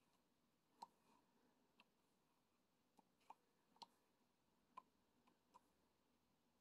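Faint, irregular small clicks and taps, about seven in six seconds, of a diamond-painting pen picking up drills and pressing them onto the canvas.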